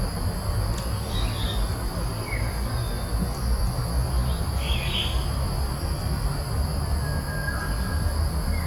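Forest background of insects droning steadily at two high pitches, over a low rumble, with a few short bird chirps scattered through.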